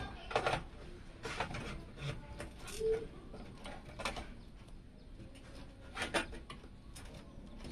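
Sleeved ATX 24-pin power cable being handled and pushed into the motherboard's power connector: a few scattered plastic clicks and knocks with cable rustle between them.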